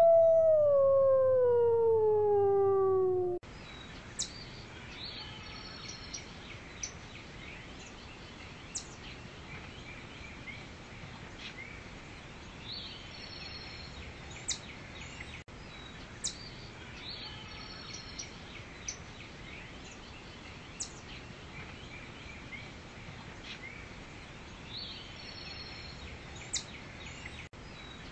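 A wolf howl: one long call that rises briefly and then slides down in pitch, ending about three and a half seconds in. After it, a steady forest ambience with scattered high bird chirps and whistles.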